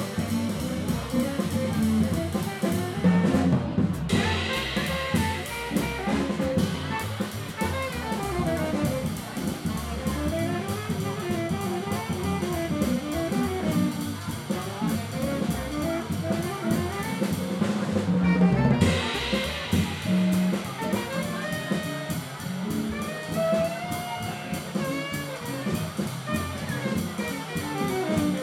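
Live small-group jazz: an upright double bass and a drum kit under a winding saxophone melody.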